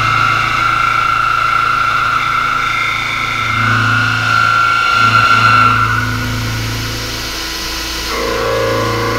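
End mill in a horizontal machining center full-slotting through a machine vise: a steady, high-pitched cutting whine over a low hum. About six seconds in the whine fades and the sound changes, and near the end a lower set of steady tones takes over.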